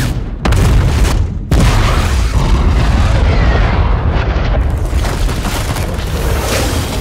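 Film sound effect of a huge nuclear bomb blast: a deep boom, a second boom about a second and a half in, then a long low rumble.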